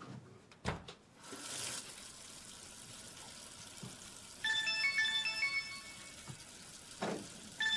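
Mobile phone ringing with a melodic ringtone of short high notes, starting about halfway through, breaking off briefly and starting again at the very end. About a second in there is a sharp click and a short rustle.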